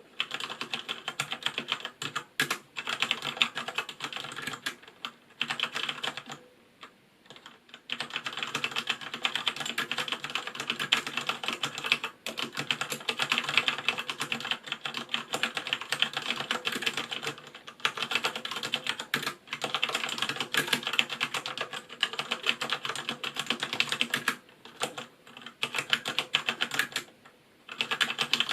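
Continuous typing on a G.SKILL Ripjaws KM780R MX mechanical keyboard with Cherry MX Brown switches: a dense, crisp clatter of keystrokes. It breaks off for short pauses about six seconds in and again near the end.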